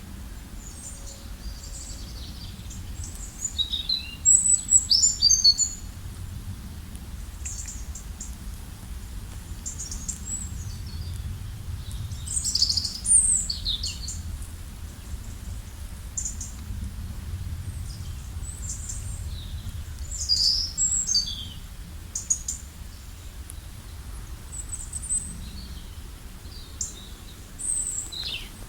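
Wild songbirds chirping and singing in short, scattered high phrases, some with quick falling notes, loudest in bursts about four, twelve and twenty seconds in, over a steady low background rumble.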